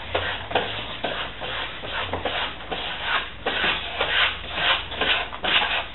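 Paper backing of a self-stick wall mural crinkling and rustling in a quick, irregular string of rustles as it is peeled away and handled.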